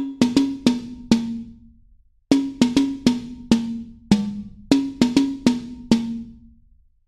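Background music: a drum-only passage of pitched, tom-like hits that ring down, played in short rhythmic groups with a brief break about two seconds in.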